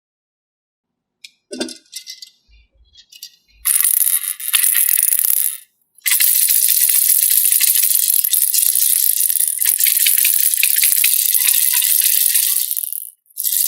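Rattling of small hard pieces being shaken, in a short bout about four seconds in and then a long unbroken bout lasting about seven seconds, after a few faint taps.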